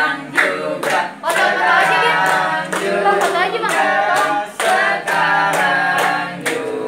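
A group of people singing together, with steady hand clapping at about two claps a second keeping the beat.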